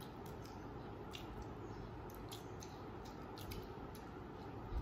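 Faint eating-by-hand sounds: short soft clicks and squishes of fingers mixing rice and curry on a plate and of chewing, several a second, over a steady low room hum.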